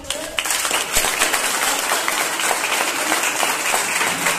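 Audience applauding: many hands clapping in a dense, steady patter that starts a moment in.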